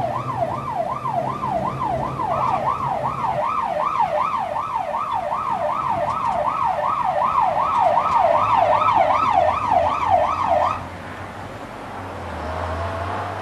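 Ambulance siren on the yelp setting: a fast, regular rise and fall in pitch, about three sweeps a second, with the vehicle's engine running underneath. The siren cuts off about eleven seconds in, leaving the engine as the van drives on.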